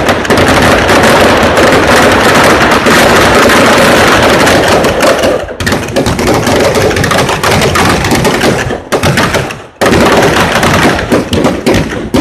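Firecrackers packed inside a burning Dussehra Ravana effigy going off in a loud, rapid, continuous crackle of bangs. The crackle breaks off briefly about five and a half seconds in and again for about a second near nine seconds, then resumes.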